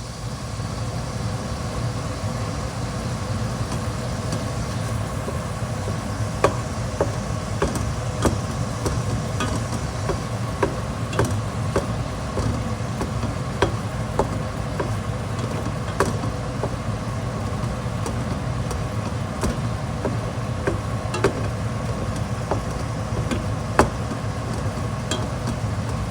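Kitchen ventilation fan switched on and running steadily: an even whoosh with a low hum and a faint steady whine, coming up to full level within the first second. Light clicks and taps sound every second or two over it.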